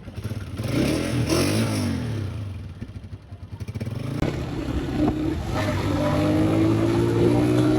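Motorcycle engine running, revving up and down about a second in, then rising steadily in pitch as it accelerates.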